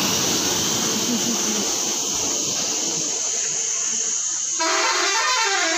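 A steady outdoor rushing noise, then about four and a half seconds in a short tune of stepped notes starts up.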